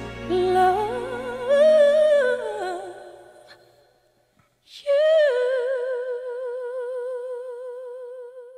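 Soundtrack music: a solo voice sings a slow, wavering melody over soft accompaniment that dies away, breaks off for about a second, then holds one long note with vibrato that fades out.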